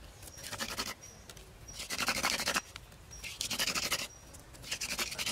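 Wooden hand drill spun back and forth between the palms on a wooden fireboard, grinding dry wood on wood to make a coal for a friction fire. Four bouts of scratchy grinding come about once every second and a half, one bout per spinning stroke.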